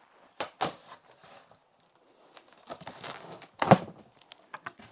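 Knife slicing the packing tape on a cardboard shipping box, with scraping and rustling cardboard, then a sharp tear about three-quarters through as a flap is pulled open, followed by a few small clicks.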